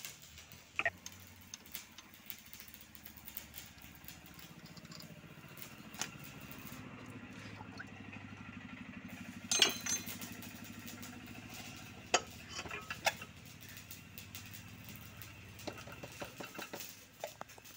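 Sharp metal clinks and taps as a tractor engine's filter canister and its fittings are handled and worked by hand, the loudest clinks in a cluster about halfway through. An engine hums in the background, growing louder and then fading over several seconds.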